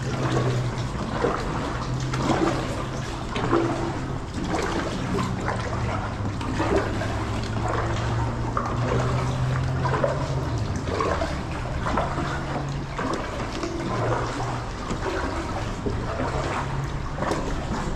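Water splashing and gurgling around a kayak moving through shallow water in a creek tunnel, over a steady low hum.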